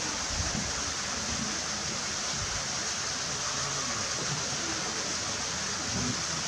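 Steady rush of water pouring into a pool, an even hiss that does not change.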